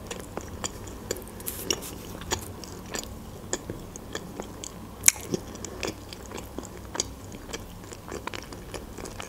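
A person chewing a mouthful of shawarma with the mouth closed, close to the microphone: a steady run of soft, wet mouth clicks and smacks, one sharper click about five seconds in.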